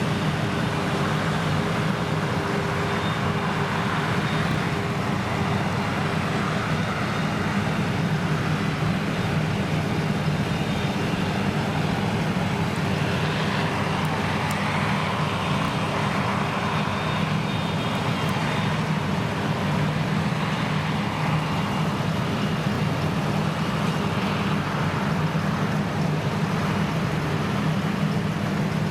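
Krone Big X 1100 self-propelled forage harvester working under full load as it chops triticale: its V12 engine and chopper make a steady, even drone with a constant low hum.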